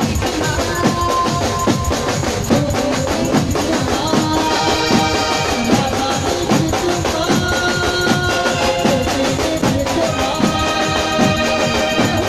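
Live Gujarati garba music played loud through a PA: fast, steady drumming from dhol drums under a held, sustained melody line.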